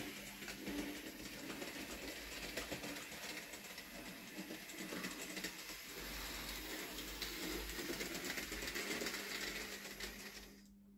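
Bachmann Rheneas model locomotive running along its track: a steady small electric-motor whir with quick clicking of the wheels over the rail joints, fading out near the end.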